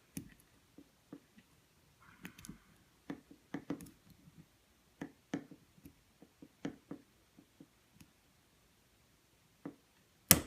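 Small scattered clicks and light scraping of a pick working the pin stacks inside an Abus padlock's plug under tension, with one louder sharp click near the end.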